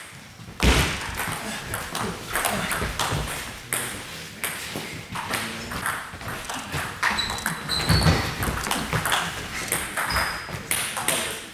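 Table tennis rally: the celluloid-type ball clicking sharply off rubber-covered bats and the tabletop, again and again in quick exchanges, with a heavier knock about two-thirds of the way through.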